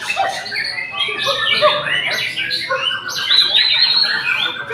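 White-rumped shama (murai batu) singing: a fast, unbroken run of varied whistles and chirps.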